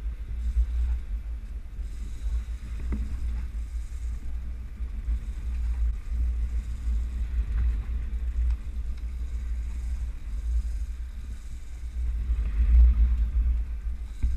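Low, uneven rumble of wind and rough sea on a small offshore fishing boat, with no clear engine tone.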